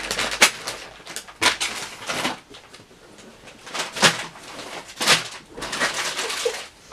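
Crinkly rustling and handling noises as spilled candies are gathered up off the floor: a string of short rustles, the loudest about four and five seconds in.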